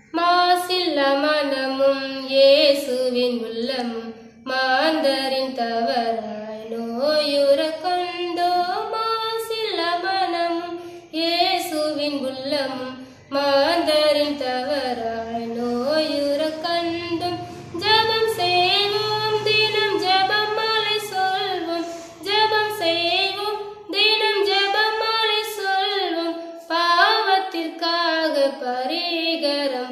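A woman singing a Tamil devotional song solo and unaccompanied, in phrases a few seconds long with short pauses for breath.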